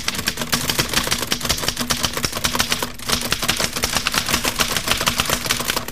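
Typewriter typing fast: a dense, irregular run of key strikes, with a brief pause about three seconds in.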